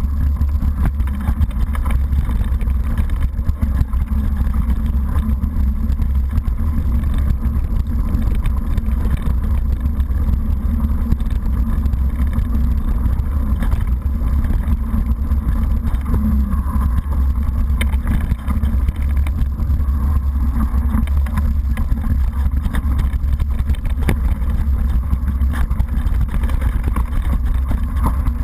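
Mountain bike riding fast over a rough, muddy and rocky trail, recorded by a GoPro HD 960 mounted on the rider or bike: a steady heavy low rumble of wind and ground vibration with constant rattling and clatter from the bike over the bumps.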